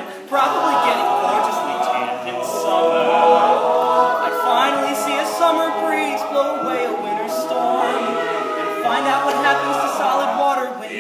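All-male a cappella group singing in close harmony: several voices holding chords over a low bass part, starting after a brief pause.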